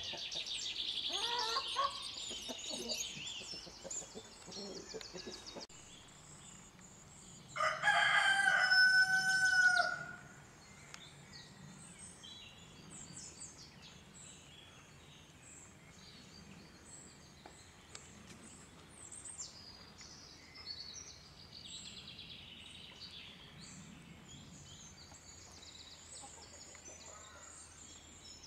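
Eurasian nuthatches calling in quick, high piping notes, strongest in the first few seconds, with scattered faint chirps later. A rooster crows once, about eight seconds in, and is the loudest sound.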